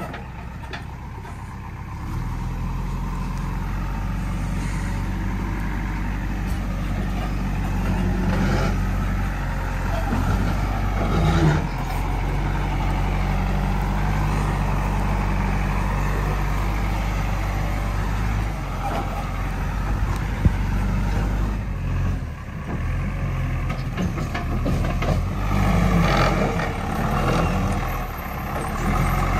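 JCB 3DX backhoe loader's Kirloskar diesel engine running steadily, its pitch and level rising and falling as the machine works under load, with a single sharp knock about 20 seconds in.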